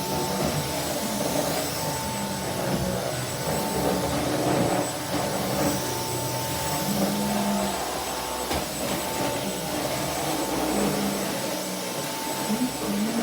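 Vacuum cleaner running steadily, a constant motor whine over dense rushing air noise, with lower tones shifting as it is pushed back and forth.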